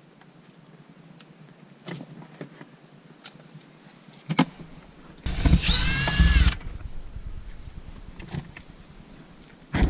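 A power drill-driver runs in one short burst of just over a second, its whine rising slightly then dipping, typical of undoing a trim screw. Scattered light clicks and knocks of handling come before and after.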